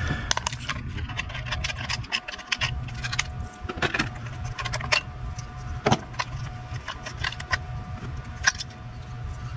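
Irregular light metallic clicks and taps of a wrench working a 10 mm nut loose on small metal parts, over a steady low hum.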